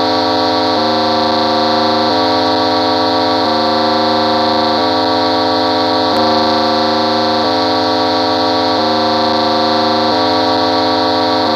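Synthesized emergency-alert attention tone of a mock EAS broadcast. It is a loud, buzzy, horn-like tone that alternates between two pitches roughly every second and a third.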